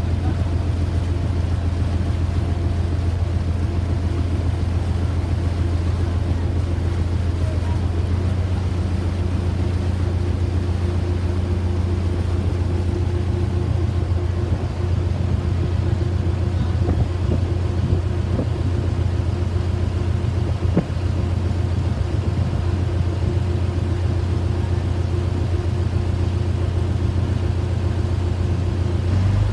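River ferry's engine running steadily under way, a constant low drone.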